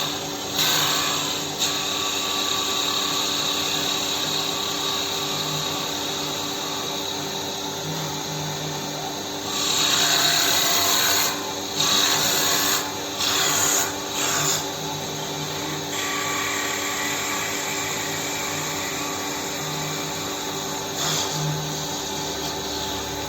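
GC5025WL CNC mini wood lathe machining a wooden workpiece: the motors run steadily while the cutter works the wood. The cutting noise swells in several louder spells about halfway through.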